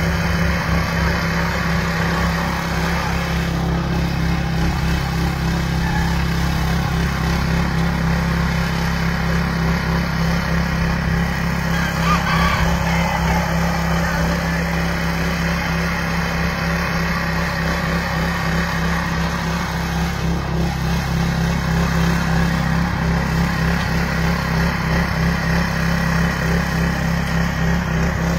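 Walk-behind garden tiller's small gasoline engine running steadily while tilling soil.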